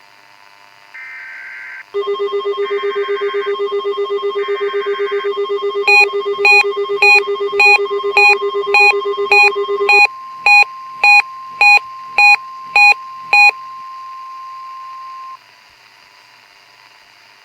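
Mock NOAA Weather Radio test alert signal: three short screechy data bursts of the digital alert header, then a loud buzzing alarm tone with a steady high tone under it. About 6 s in, a series of sharp beeps starts at nearly two a second; the buzz stops about 10 s in, while the beeps and the steady tone go on, the tone cutting off about 15 s in.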